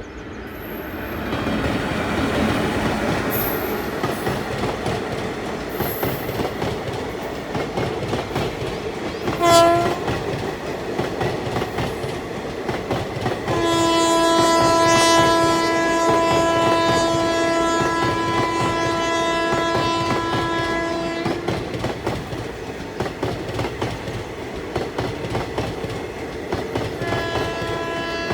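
Indian Railways express train running past on the track with steady wheel and rail noise and clickety-clack. Its locomotive horn gives a short toot about a third of the way in, then a long, steady blast of several notes held for about eight seconds, and sounds again near the end.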